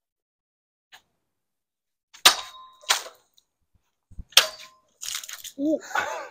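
Steel longsword blade clinking sharply three times, each clink with a short metallic ring. Near the end comes a brief rushing swish.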